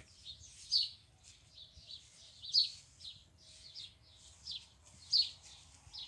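Common blackbird calling: a series of short, high chirps, each sweeping down in pitch, about two a second.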